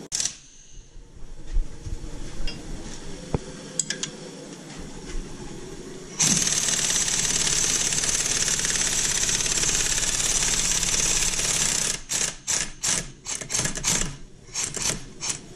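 Impact wrench on a long socket extension, working on the lower bolt of a rear strut: it runs steadily for about six seconds, then fires in a series of short bursts. A few knocks of tool handling come first.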